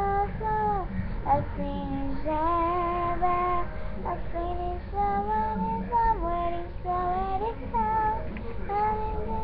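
A high voice singing a melody in held notes, stepping from pitch to pitch with short slides between them.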